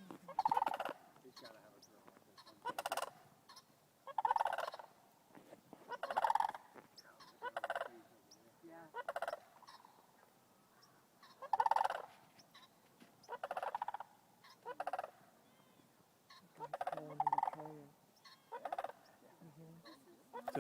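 Crane calling: a long series of loud, separate calls, each under a second, about one every one to two seconds.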